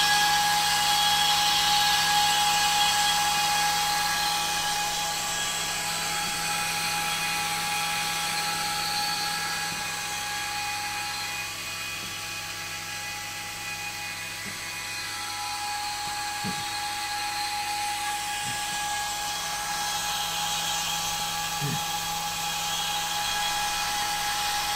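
Cooling fan on the amplifier's heatsink running at full speed: a steady, noisy whine with a strong high tone, easing somewhat in the middle and louder again near the end.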